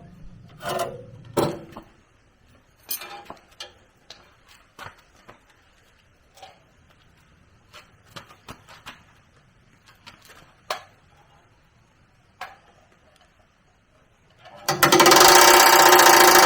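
Metal tools and parts being handled: scattered light clinks and knocks. Near the end a motor-driven machine starts abruptly and runs loudly with a steady hum.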